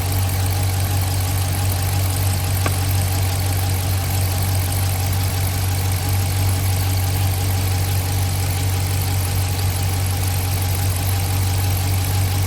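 Dodge Charger R/T's 5.7-litre Hemi V8 idling steadily with a constant low hum, warming up with the electric cooling fan not yet running.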